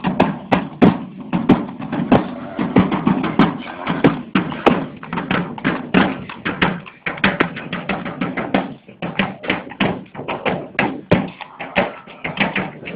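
Marching side drums beaten in a brisk processional rhythm, a dense run of sharp strokes with a brief lull about two-thirds of the way through.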